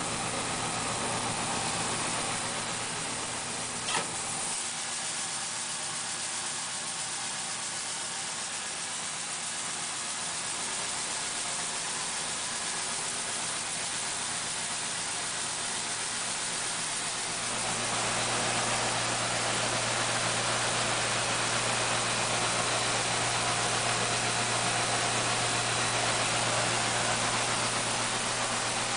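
Coin-operated rice milling machine running with a steady hiss and low hum, one sharp click about four seconds in. About 17 seconds in it grows louder, with a stronger steady hum, as milling gets under way.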